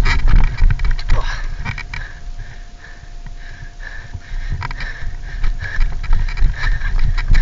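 A person breathing hard close to the microphone, with uneven thumps and knocks of movement and handling over it.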